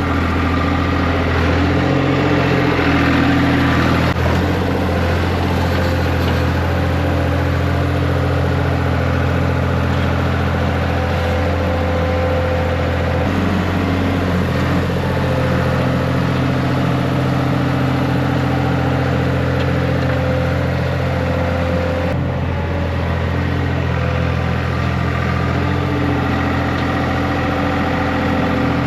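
Skid steer engine running steadily while grading with the bucket. Its note shifts about halfway through and again a little later as the load changes.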